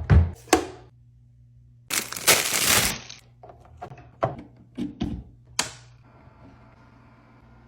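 Items being handled and set down while restocking a mini fridge: a string of sharp clicks and knocks, with a burst of rustling or crinkling about two seconds in.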